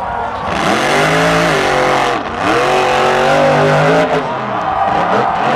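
Monster truck's supercharged V8 engine revving hard twice, each time climbing in pitch, holding and then dropping, before it settles to a steadier note near the end.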